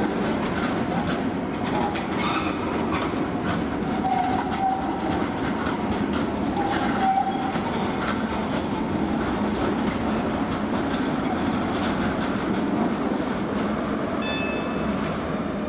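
Low-floor articulated street trams running past on street track: a steady rumble of steel wheels on rails. Short wheel squeals come about four and seven seconds in, and a higher-pitched squeal about fourteen seconds in.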